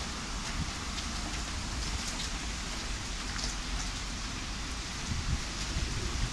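Rain falling steadily during a thunderstorm: an even hiss with scattered ticks of drops hitting nearby surfaces.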